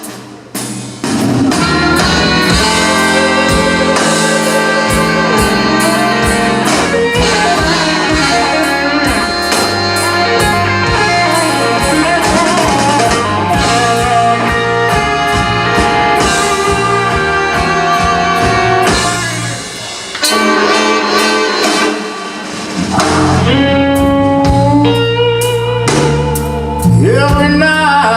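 Live blues band playing an instrumental intro: electric guitar and drum kit over bass and keyboard, with a horn section of trumpets, trombone and saxophones. The music briefly drops back twice, about two-thirds of the way through.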